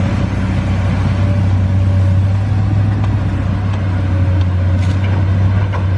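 A loud, steady motor drone with a hiss over it, cut off suddenly at the end.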